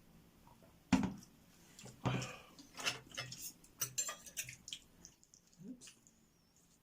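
Cutlery knocking and clicking against plates and dishes while eating: a series of light, irregular clicks, the loudest knock about a second in.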